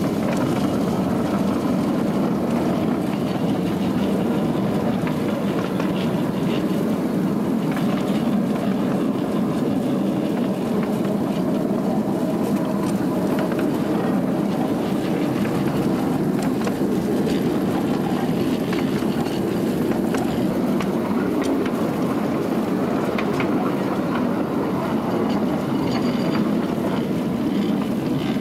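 A 12-inch gauge live-steam Shay train running steadily along its track, a continuous running noise with a few faint clicks scattered through it.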